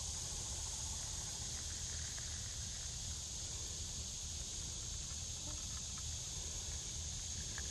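Hot water poured in a thin, steady stream onto coffee grounds in a cloth handkerchief filter, a soft continuous trickle, with a steady high hiss behind it.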